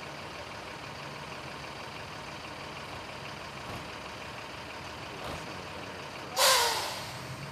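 Large high-water rescue truck idling with a steady low hum. About six and a half seconds in comes a sudden loud burst of air-brake hiss with a brief falling squeal, fading within a second.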